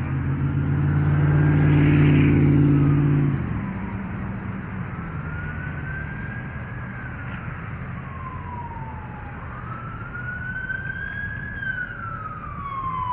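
Ambulance siren on a slow wail, rising and falling in pitch about every four seconds and growing louder toward the end. Over the first three and a half seconds a nearby motor vehicle's engine hums loudly, then stops.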